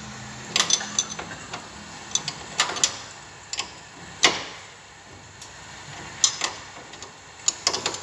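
Irregular sharp metallic clicks and knocks, about a dozen, as a hand tool works against the steel hanger plates and brackets of an elevator car-door operator.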